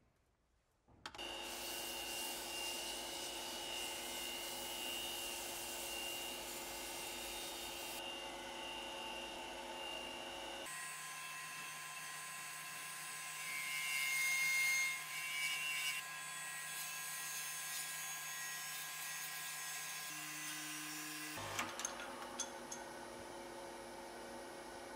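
A motor-driven power tool running steadily on work, with its pitch and noise changing abruptly several times and swelling briefly near the middle.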